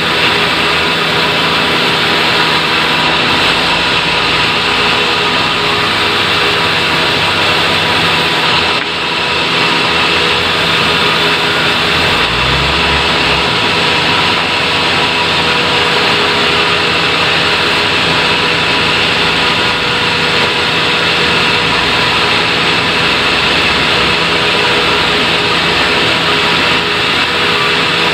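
Sawmill machinery running steadily, a loud even machine noise with a constant hum. A brief low thud about twelve seconds in.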